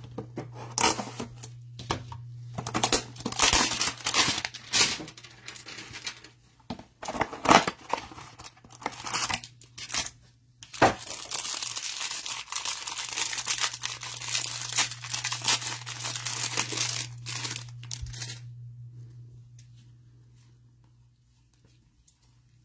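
A cardboard trading-card hanger box and its wrapper being torn open: repeated sharp tearing and crinkling for about eighteen seconds, then it goes nearly quiet. A low steady hum runs underneath.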